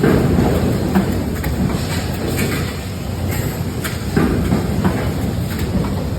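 Press machine running: a steady low mechanical rumble with repeated knocks about once a second.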